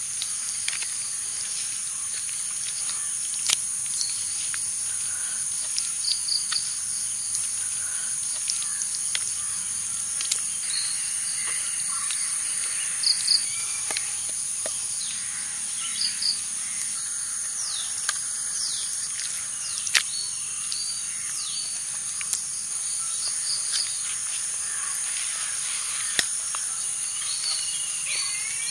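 Outdoor ambience: a steady high-pitched insect drone, with short bird chirps scattered throughout and a few sharp clicks.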